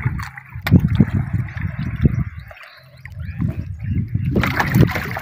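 Sea water sloshing and lapping against a small outrigger boat in irregular surges, with water trickling off a wet gill net being handled over the side. A louder splash comes near the end.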